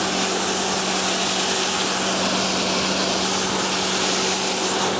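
AVA Evolution P80 electric pressure washer running, its stubby gun on the wide fan setting spraying water onto a car's paintwork: an even, steady hiss with a steady hum underneath.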